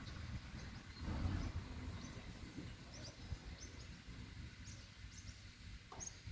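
Wind gusting over the phone's microphone as a low, uneven rumble that swells about a second in, with birds giving short chirps several times.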